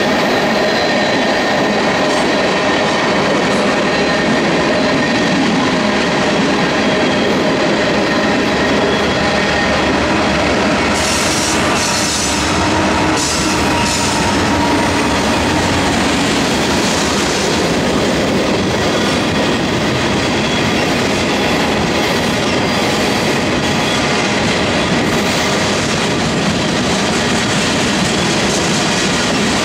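Freight trains rolling past on parallel tracks: the diesel locomotives at the head of a grain train go by first, then a long run of covered hopper cars. Steady rumble of steel wheels on rail with clickety-clack, and brief high wheel squeals around the middle.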